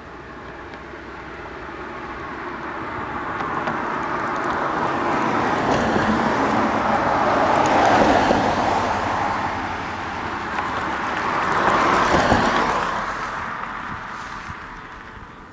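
Two vehicles driving past, one after the other: their tyre and engine noise swells to a peak about eight seconds in, dips, peaks again about twelve seconds in, then fades away.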